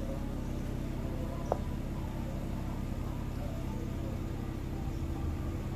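Steady low mechanical hum, with one sharp click about a second and a half in.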